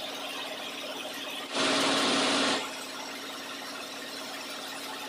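Lathe running with an 8 mm keyway milling cutter spinning in the chuck, cutting a keyway into a shaft clamped on the tool post: a steady machine running sound. About a second and a half in, a loud harsh rush of noise lasts about a second.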